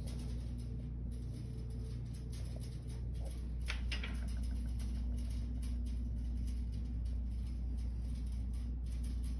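Steady low electrical hum with faint small clicks and rustles from handling, and one brief scrape about four seconds in.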